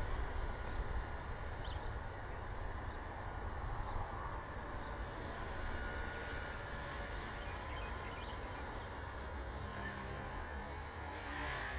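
Wind rumbling on the microphone, over the faint high-pitched whine of a Blade mCP X micro RC helicopter's motors, which swells about halfway through as the helicopter passes nearer.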